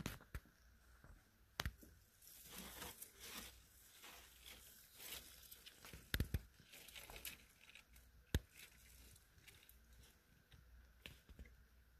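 Paper and plastic packing material rustling and crinkling as hands handle a plant wrapped in a paper sleeve, mostly through the middle stretch. Several sharp clicks are scattered through it.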